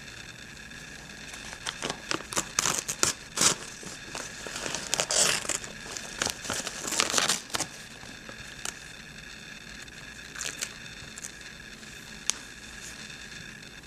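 Crinkling and rustling of machine-embroidered fabric as hands work loose threads off it, with a dense run of crisp crackles and small ticks in the first half, then only a few scattered ticks and one sharp tick near the end.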